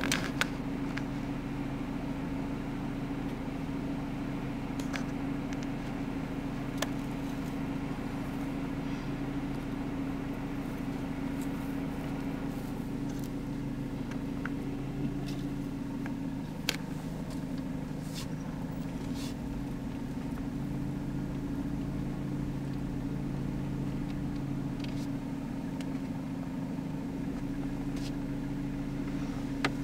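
Steady low hum of an idling vehicle engine, with a few faint clicks.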